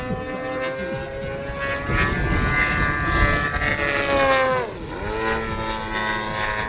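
Petrol engine of a Pilot RC Laser 88" aerobatic model plane running through MTW tuned pipes in flight, its note climbing and loudest as it comes close. Near five seconds in the pitch swoops sharply down as it passes, then runs on at a lower note.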